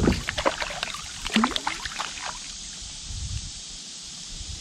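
A hooked fish splashing and thrashing at the water's surface as it jumps beside the kayak, with bursts of splashing at the start and again about a second and a half in, then quieter water.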